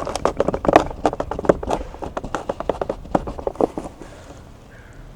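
Quick, irregular plastic clicks and taps from a round overhead air vent outlet being pushed and twisted into its bayonet mount in the ceiling trim. They stop about four seconds in.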